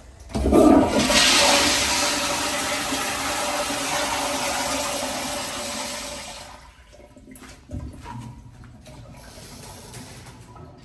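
A Kohler commercial restroom fixture flushing. A sudden loud rush of water starts about half a second in and slowly dies away over about six seconds. A short knock follows near the end.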